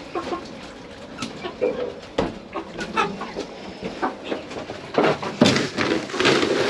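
Chickens clucking, amid short knocks and rattles of a wire-mesh cage being handled, busier near the end.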